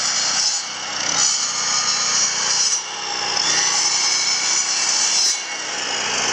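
Mastercraft miter saw running and cutting wood boards, a steady high-pitched motor whine that dips briefly three times, with a portable gas generator running underneath.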